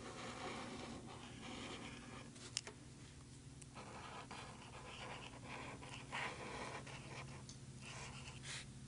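Black paint pen stroking along the outlines of a drawing, faint scratchy runs of writing noise with short pauses between them, and one sharp click about two and a half seconds in.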